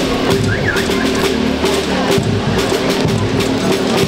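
School marching rhythm band (banda rítmica) playing: snare and bass drums beating a steady marching rhythm under sustained melody notes.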